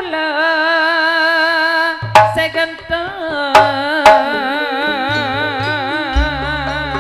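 Madurese gending music: a long melody line with a strong, even waver. Sharp drum strokes join it about two seconds in, and a deep low note sounds near the end.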